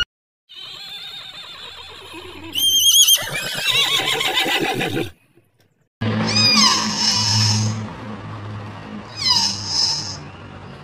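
Animal calls in two separate clips, whinny-like to the tagger. About two and a half seconds in there is a high wavering call. After a short break, two falling calls come about two and a half seconds apart.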